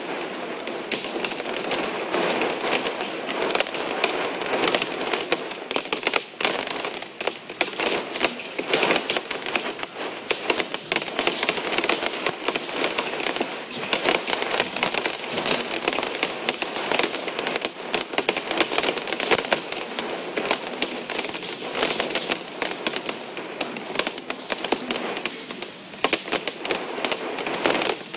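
Hailstones pelting down, a dense, continuous clatter of many small impacts.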